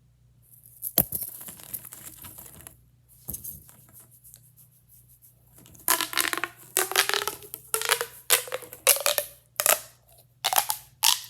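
Bike chain fidget toys being handled and flexed: a sharp click about a second in, another a couple of seconds later, then a quick run of crackling, clicking strokes through the last five seconds.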